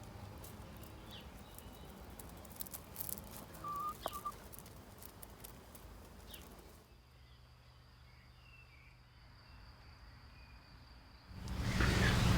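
Faint outdoor ambience with a few short bird chirps and light clicks. It then drops to near silence, and a louder, steady noise with a low hum starts near the end.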